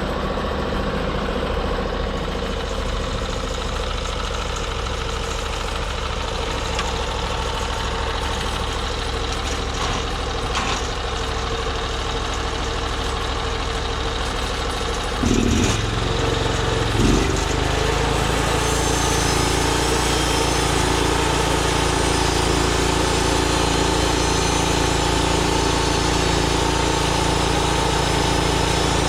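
Small gasoline engine of a portable bandsaw mill, running steadily. About fifteen seconds in there are two brief louder thumps, and from there on the engine runs a little louder and brighter.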